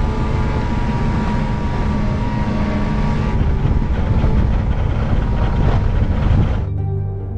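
Snowmobile engine running at speed, with track and wind noise, heard from the rider's seat. It cuts off suddenly near the end.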